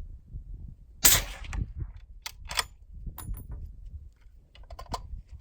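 One suppressed shot from a .338 Lapua Magnum bolt-action rifle fitted with a Thunder Beast 338SR suppressor, about a second in, with a short trailing echo. The shot measured 123.7 dB A-weighted at the shooter's ear. Several sharp metallic clicks follow.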